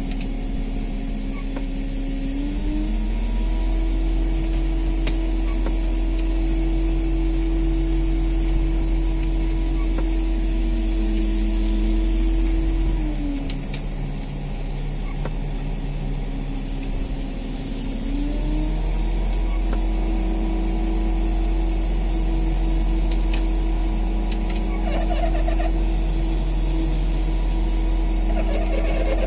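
A fishing boat's engine running steadily. Its pitch rises a couple of seconds in, falls back about halfway through, and rises again a few seconds later.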